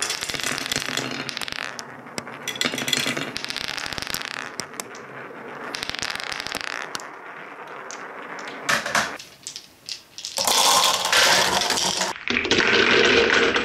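Small plastic balls rolling and clattering down a curved wooden marble-run track, a dense rattle of clicks and knocks. Near the end it grows louder, and balls drop and rattle into a clear plastic bottle cup.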